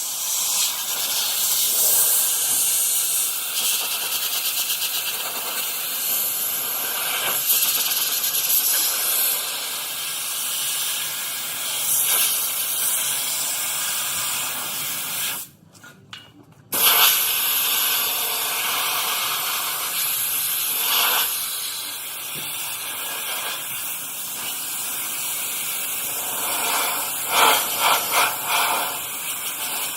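Compressed air hissing hard from an air blow gun, blowing water off a wet-sanded car bumper to dry it. The air cuts off for about a second around the middle, then starts again, and turns more uneven and spluttery near the end.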